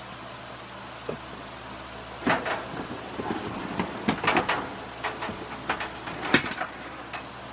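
Vintage GE three-speed metal box fan running with a steady hum. From about two seconds in, a run of sharp knocks and clatters is heard, the loudest near the end.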